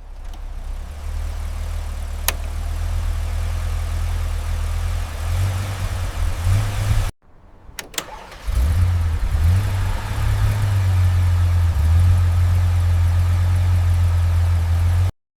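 A 1975 BMW's engine running with a low, steady drone. It cuts out about seven seconds in, comes back louder a second and a half later, and stops abruptly near the end.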